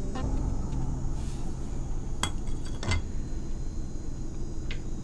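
Hand pliers clicking against metal and wire connectors while working on motorcycle wiring: three sharp clicks, about two seconds in, a second later, and near the end.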